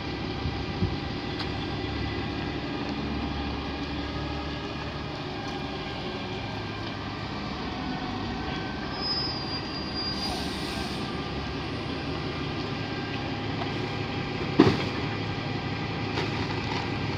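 Refuse collection lorry running at the kerb, its engine and rear bin-lifter and compactor machinery making a steady mechanical din with a metallic whine. A single loud bang comes near the end, as bins knock on the lifter.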